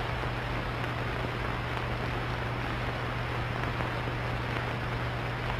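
Steady hiss with a constant low hum underneath, the background noise of an old film soundtrack, with no distinct event.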